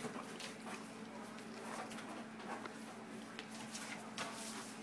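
Two Alaskan Malamute puppies tugging and scuffling over a rope toy on a tile floor: scattered light clicks and scrapes of claws and toy, over a steady low hum.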